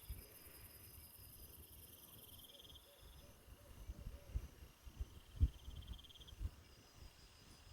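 Insects trilling: a very high, fast-pulsing trill that stops about two and a half seconds in, and shorter, lower trills that come back every couple of seconds. Several soft low thumps, the loudest around the middle.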